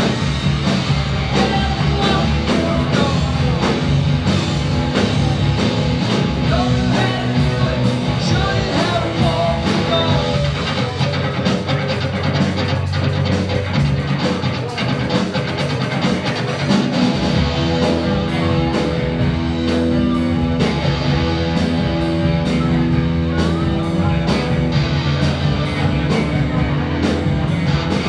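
Live rock band playing: electric guitars over a steady drum kit beat.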